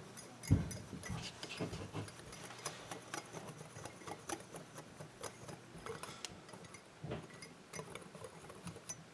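A spoon stirring dry cake batter ingredients (flour, sugar, cocoa powder), faintly scraping and lightly clicking against the side of the dish, with a louder knock about half a second in.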